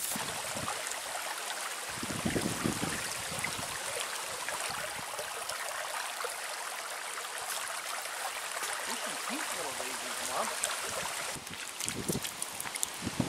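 Shallow creek running over rocks, a steady babbling rush of water. Near the end a few soft thumps come from close to the microphone.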